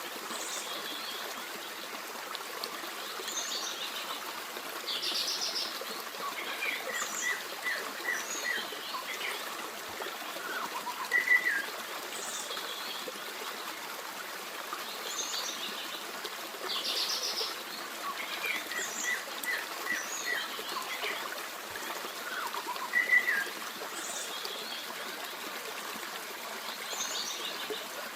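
Forest stream flowing steadily under songbirds: a short bright two-note call, a quick run of about five chirps, and a buzzy trill, the same set of calls coming round about every twelve seconds.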